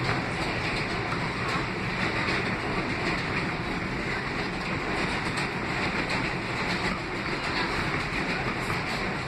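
Steady running noise heard inside an R160 subway car moving through the tunnel: wheel and rail rumble with a constant roar.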